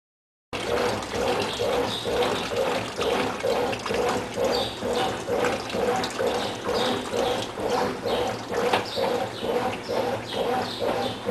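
Brastemp Tira-Manchas 9 kg top-load washing machine agitating: water and laundry sloshing back and forth in an even rhythm of about two strokes a second. It starts abruptly about half a second in.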